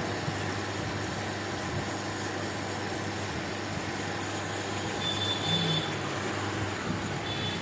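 Bajaj air cooler running with its replaced motor: a steady hum with a rushing noise of air and of water from the submersible pump running over the wet honeycomb cooling pads, a sign that the cooler works again.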